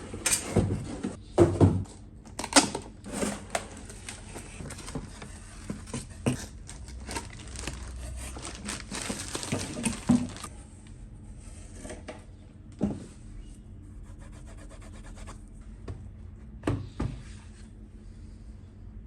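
Handling sounds of a laptop being unboxed: rubbing and scraping of packaging with many sharp knocks, busiest in the first half and then dropping to a few single knocks.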